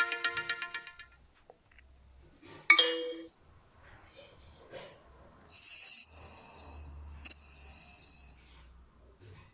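Huawei phone notification tones. The last of a chime fades out, a short chime sounds about three seconds in, and then comes a high, slightly wavering tone lasting about three seconds.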